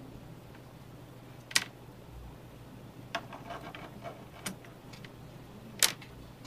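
A few sharp clicks and light taps of small metal and plastic parts being handled while unsoldering wires from a car lighter-socket plug, with a cluster of lighter ticks in the middle and the two loudest clicks about a second and a half in and near the end. A faint steady hum runs underneath.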